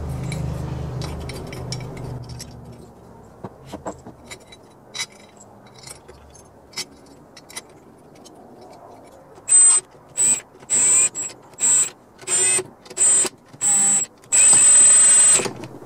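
Cordless drill/driver spinning the head bolts down into a small Briggs & Stratton engine's cylinder head, snugging them without tightening them fully. It comes in eight short whining bursts starting about nine and a half seconds in, the last one the longest at about a second. Before that there are light clicks of bolts and washers being handled.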